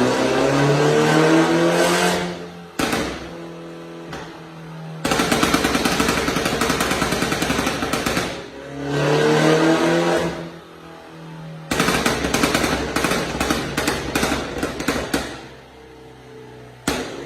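BMW G30 5 Series with an Armytrix aftermarket exhaust, revved and let fall back to idle twice, each blip followed by a long run of rapid pops and crackles from the exhaust on the overrun. A single sharp pop comes near the end.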